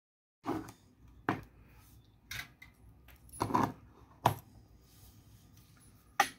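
About six sharp, irregularly spaced clicks and knocks of hard plastic parts being handled, as a T12 soldering iron handle is seated in the holder of a 3D-printed case and the case is moved on the desk.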